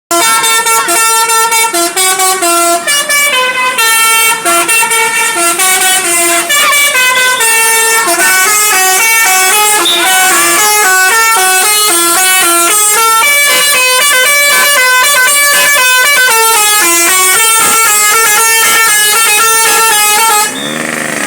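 A bus's 'telolet basuri' multi-tone melody horn playing a loud tune, a quick run of stepped notes that changes several times a second. It cuts off shortly before the end.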